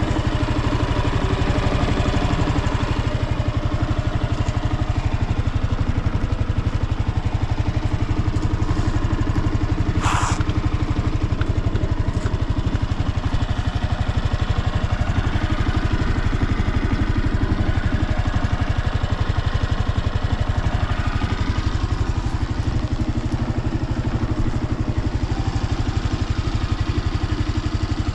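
Honda PS250 scooter's single-cylinder four-stroke engine idling steadily at an even pitch, with no abnormal noise. A single short sharp click about ten seconds in.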